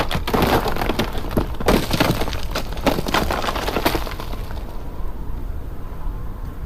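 Crash and shatter sound effects: a rapid, dense run of sharp breaking impacts for about four seconds, then a steadier low noise as they die away.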